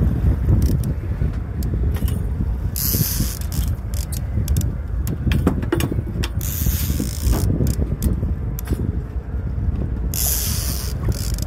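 Trolling reel cranked steadily to fight a hooked salmon on light line, its gears clicking and ratcheting, over a low rumble of wind. Three short bursts of hiss come about a third of the way in, past the middle, and near the end.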